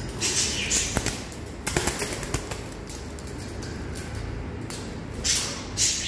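Rose-ringed parakeet moving about in its wire cage: short rustling bursts about a quarter second in and again near the end, and a few sharp clicks around two seconds in, over a steady low hum.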